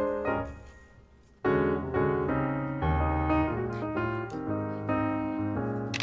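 Piano music: struck notes and chords fade away during the first second and a half, then a new phrase starts and continues.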